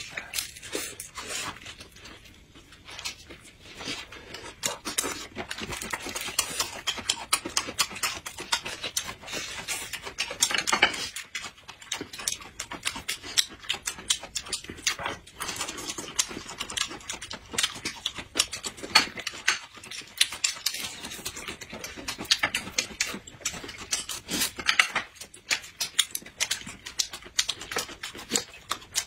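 Close-miked eating sounds: chewing and crackling of food with wet mouth clicks, and now and then chopsticks knocking against dishes.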